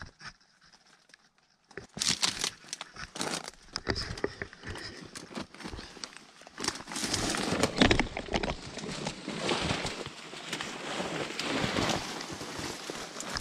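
Dry scrub branches crackling and scraping against clothing as someone pushes through brush and clambers over rock, starting about a second and a half in and going on in irregular bursts.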